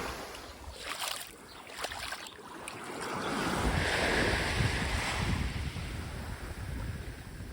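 Surf washing onto a beach, one wave swelling up and fading about three seconds in, with wind rumbling on the microphone.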